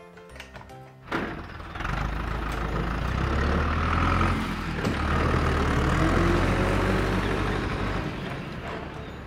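Tractor engine sound: a low rumble that starts about a second in, grows louder with its pitch rising and falling, and fades near the end.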